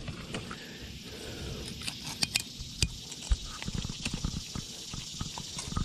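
Scattered light knocks, taps and rattles of handling over a steady faint hiss.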